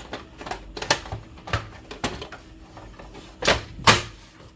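Plastic housing cover of a Brother DCP-T310 inkjet printer being fitted back into place: a series of sharp plastic clicks and knocks, the two loudest close together near the end as the cover snaps home.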